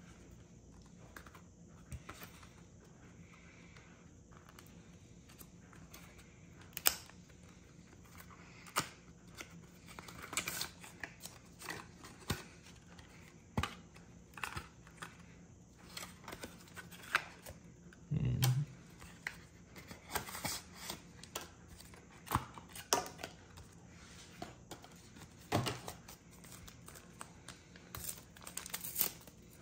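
Hands tearing open a McDonald's promo pack of Pokémon trading cards and handling the cards: scattered paper rustles, tearing and small card clicks, with a low thump about eighteen seconds in.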